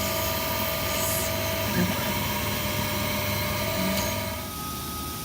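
High-speed CNC router spindle running with a steady whine and hiss, which drops off about four and a half seconds in, leaving a quieter single whine.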